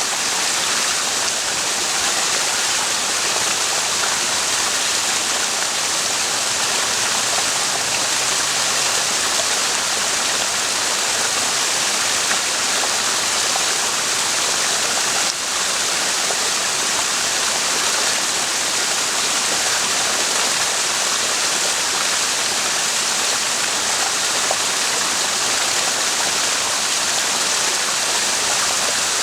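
Mountain spring water flowing steadily: an even, unbroken rushing hiss.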